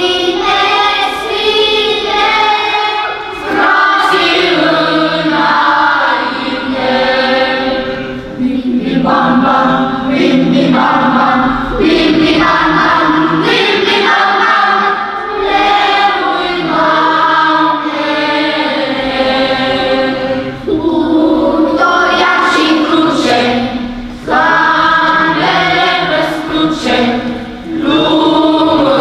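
A children's choir singing together, phrase after phrase, with short breaks between phrases.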